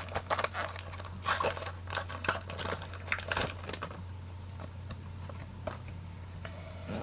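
Foil Pokémon booster pack wrapper crinkling as it is opened, a quick run of crackles over the first three and a half seconds that then stops, leaving a low steady hum.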